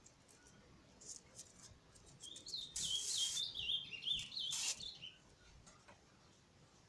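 A small bird chirping a quick run of short, high notes that step down in pitch, with a brief rustle partway through.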